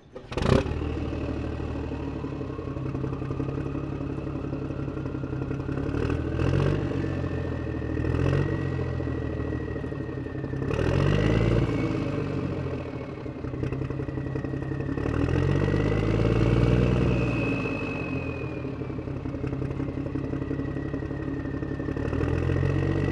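Tractor engine sound effect: an engine running steadily, its pitch and loudness swelling up and back down several times as it revs.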